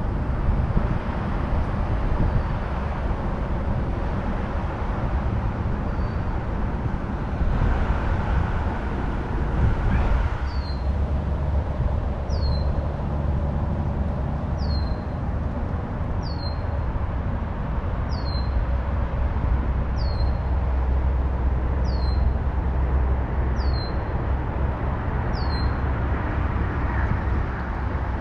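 Steady outdoor low rumble and hiss. From about ten seconds in, a bird calls the same short high note over and over, about once every second and a quarter.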